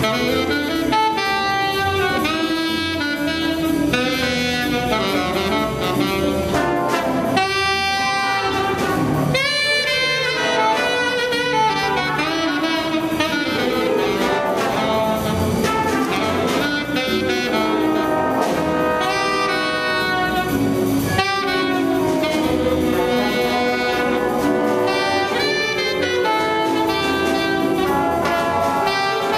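A jazz big band playing: saxophones and trumpets and trombones over piano, upright bass and drums, holding a steady full level.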